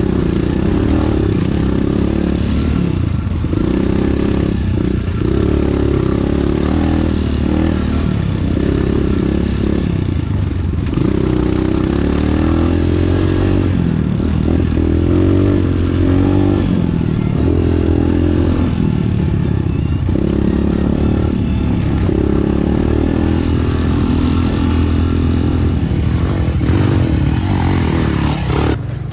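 Enduro motorcycle engine running under changing throttle, its pitch rising and falling every second or two, with a sudden cut near the end.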